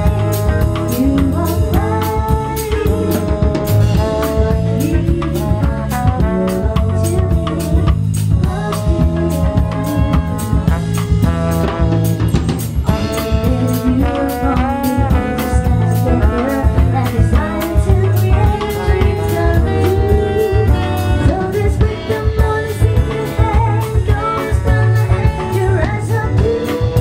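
Live band playing: drum kit and electric guitar keeping a steady beat under a trombone and a sung melody.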